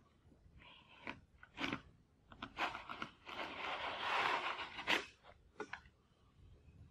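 Handheld edge banding trimmer shearing excess cherry wood-veneer edge banding off a board's edge. It gives a few crisp clicks and crunches, then a longer scraping cut about three to four and a half seconds in, then two more clicks.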